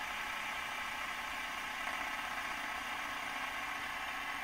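Fidget spinner spinning on its ball bearing, giving a steady even whir.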